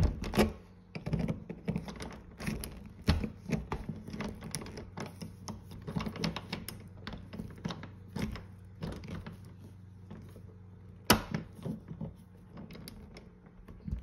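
Needle-nose pliers clicking and scraping against the metal parts of a stripped doorknob lock as it is pried apart. The clicks are irregular, with a louder click about eleven seconds in.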